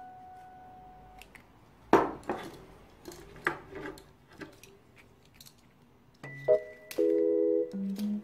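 A sharp snip or clunk from the pruning shears about two seconds in, followed by a few softer clicks and rustles as rubber plant cuttings and tools are handled. Light mallet-percussion background music comes in near the end.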